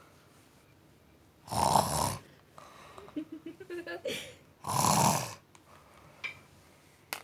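A woman snoring in her sleep: two loud snores about three seconds apart, each lasting under a second.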